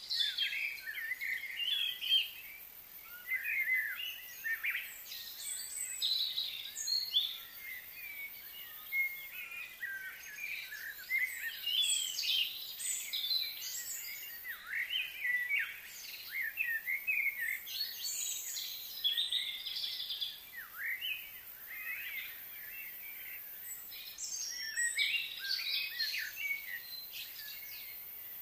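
Several birds chirping and singing continuously: quick, high, overlapping calls that slide up and down in pitch.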